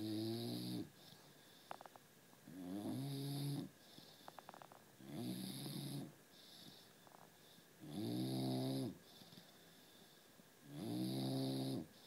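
Bulldog snoring in its sleep: five even, pitched snores, each about a second long, coming about every three seconds, with a few faint clicks in the pauses between them.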